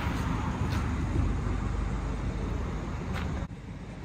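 Scania K440IB coach's rear-mounted diesel engine running with a steady low rumble, with two brief sharp sounds on top and a short drop in level near the end.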